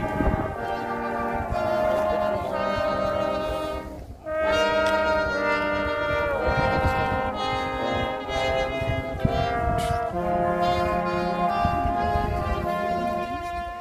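Brass band playing slow music in long held chords, with a short break between phrases about four seconds in.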